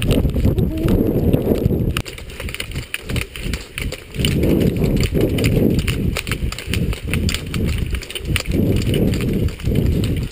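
Rhythmic footfalls and ski-pole plants on a gravel road as athletes bound uphill with poles, under heavy wind rumble on a moving camera's microphone.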